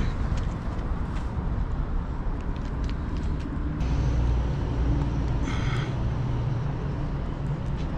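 Steady low outdoor rumble, with a few faint short scrapes and taps as a brush works liquid roof sealant around a skylight's base; one brighter scrape about five and a half seconds in.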